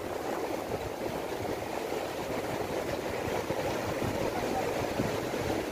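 Sea surf washing and breaking against rocks, a steady low rush, with wind buffeting the microphone.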